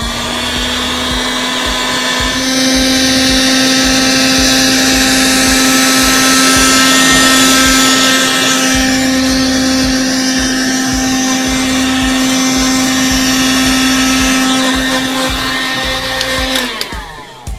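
Handheld electric heat gun blowing hot air over wet acrylic paint on a canvas, running at a steady whine with a rush of air. It is switched off about a second before the end, and its whine winds down.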